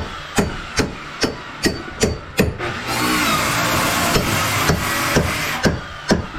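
Hammer blows struck in a steady rhythm, about two to three a second, during floor tear-out work. There is a pause of about two seconds in the middle, and the strikes then resume.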